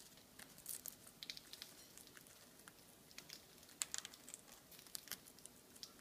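Faint, irregular clicks and crackles of green-cheeked conures nibbling and cracking food with their beaks.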